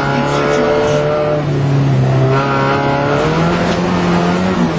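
Rally car engine under hard acceleration, heard from inside the cabin. The revs climb, break off about a second and a half in, and climb again, over steady tyre and road noise.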